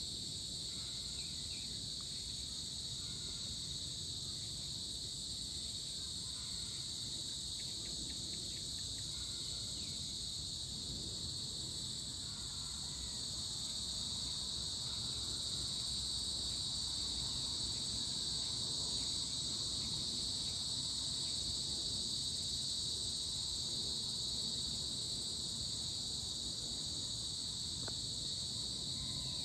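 Steady evening chorus of insects, an unbroken high-pitched trilling buzz that grows slightly louder about halfway through.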